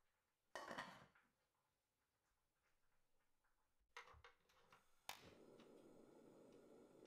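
A stainless steel pot lid clinks down onto the pot about half a second in. Around four to five seconds in, a tabletop gas stove's igniter clicks and the burner lights with a sharp snap, then the flame runs with a steady, soft rush.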